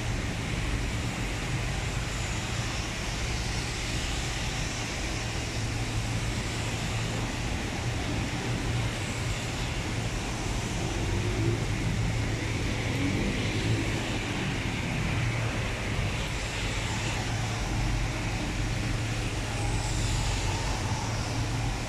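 Steady heavy rain, with the tyres of a few passing cars swishing on the wet road over a low, steady rumble.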